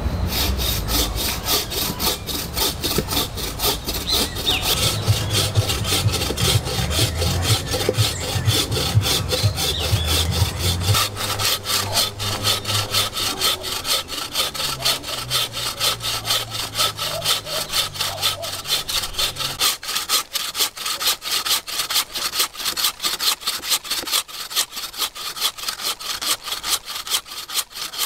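Handmade wooden bucksaw cutting through a fallen log, in steady back-and-forth strokes.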